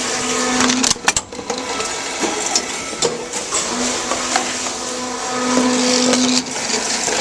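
Tomra TX2 reverse vending machine's mechanism running with a steady, noisy grinding whir while it tries to move a jammed plastic bottle, with a couple of sharp knocks about a second in.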